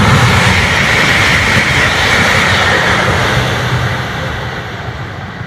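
CRRC high-speed train passing at speed: a loud rushing, rumbling noise that fades steadily as the train pulls away.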